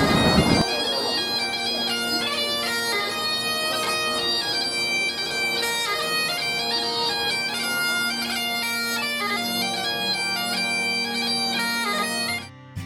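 Bagpipes playing a tune over a steady drone. The tune cuts off just before the end.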